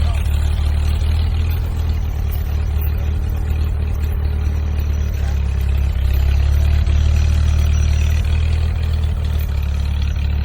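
Tractor engine running steadily, a loud, constant low rumble.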